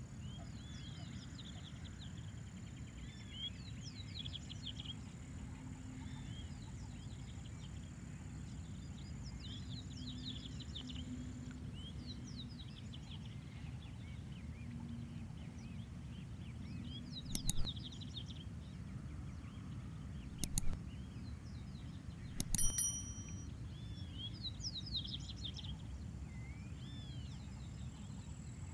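Outdoor ambience by a pond: small birds chirping again and again over a steady low rumble, with a thin, steady high tone in the first part and again near the end. Three sharp clicks come in the second half, a few seconds apart.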